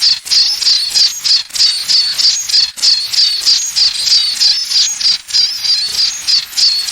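High-pitched, tinnitus-like sound: a rapid chirping pulse repeating about three to four times a second over a steady hiss.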